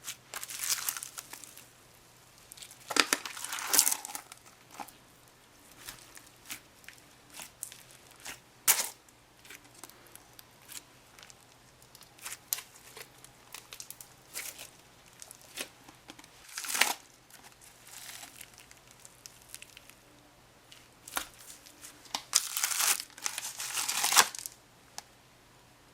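Old, dried-up crunchy slime being squeezed and pulled apart by hand, crackling and crinkling in irregular bursts, the loudest a few seconds in, around the middle and near the end.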